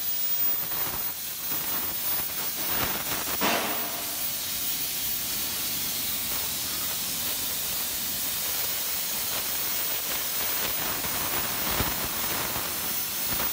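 Plasma cutting torch hissing steadily as its arc cuts a bevel around a metal dome. A brief, harsher rasp comes through about three and a half seconds in.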